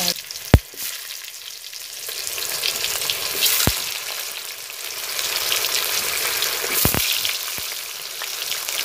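Tomato pieces and green chillies sizzling and crackling as they fry in hot oil in an iron kadai, with a few sharp knocks, the loudest about half a second in.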